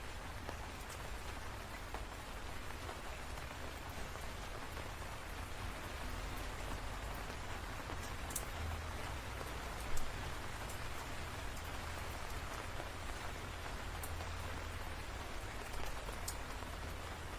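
Steady rainfall hissing evenly, with a few sharper drop ticks scattered through it, the loudest about ten seconds in.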